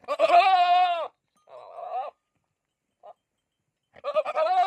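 Goat bleating: a long, loud, wavering bleat, then a shorter, quieter one, and another long wavering bleat near the end.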